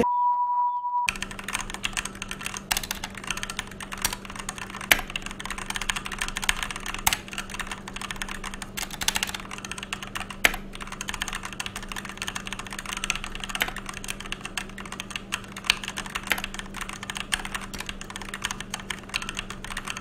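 A steady test-card beep for about the first second, then fast continuous typing on an AJAZZ K870T 87-key mechanical keyboard with Huano Red switches: a dense run of key clacks with a few louder strikes, over a faint steady hum.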